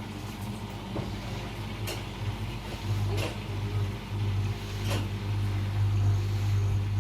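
LG washing machine running with a steady low hum that grows stronger about halfway through, and a few light knocks.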